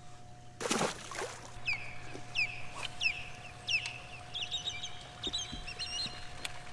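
A bird calling: a run of about six short, high, down-slurred notes roughly half a second apart, followed by a quick twittering chatter. A faint steady hum runs underneath, and there is a brief noisy burst near the start.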